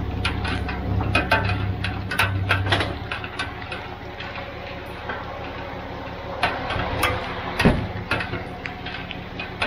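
Ram 3500 pickup engine running with a steady low hum, stronger for the first three seconds and then easing off, after backing a fifth-wheel trailer up a gravel driveway. Scattered sharp clicks and crunches sound throughout.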